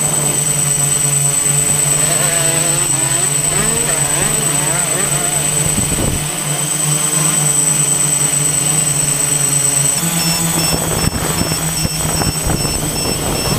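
Quadcopter drone's motors and propellers humming steadily, with the rising and falling notes of 125 cc motocross bikes revving in the distance. The hum shifts slightly about ten seconds in.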